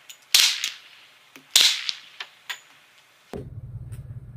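Two quiet shots, about a second apart, from a Glock 20 10mm pistol fitted with a SilencerCo Hybrid 46 suppressor, each followed by a few light clicks. The HSM 200-grain rounds are subsonic, so there is no crack of the sound barrier. A steady low rumble starts near the end.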